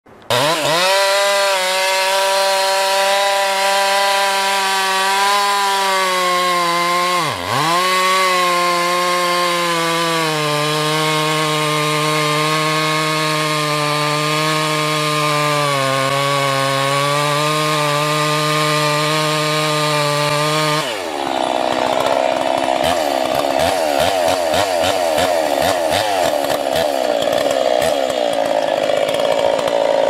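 Gasoline chainsaws cutting into large tree trunks, the engine holding a steady high pitch under load with a brief dip about seven seconds in. About two-thirds through, the sound switches to a different saw with a higher, wavering whine and chatter from the chain.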